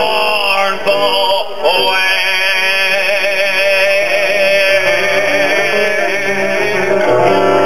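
Live music: a man singing long held notes with heavy vibrato and no clear words, over acoustic guitar.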